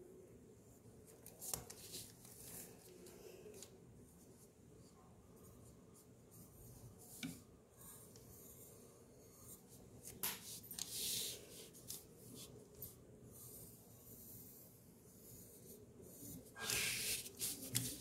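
Pencil scratching lightly on drawing paper as drop outlines are sketched, with a few louder rustles of the paper sheet sliding on the table, the strongest about ten seconds in and near the end.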